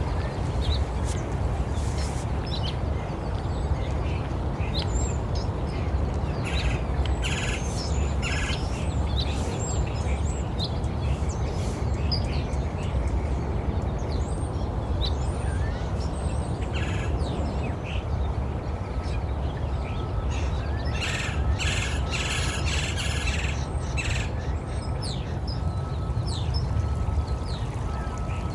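Recorded nature soundscape: many birds chirping and calling over a steady low rushing sound, with two busier spells of chatter, about a quarter and about three quarters of the way through.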